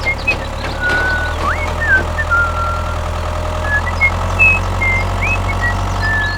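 A vehicle engine running at a steady idle, a continuous low drone, with short chirping whistles scattered over it. The sound starts and stops abruptly.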